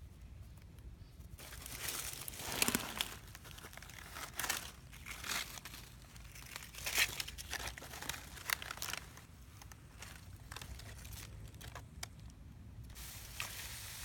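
Dry fallen leaves crackling and rustling as hands and a knife work through the leaf litter to dig up mushrooms, in irregular bursts from about a second and a half in until near the end.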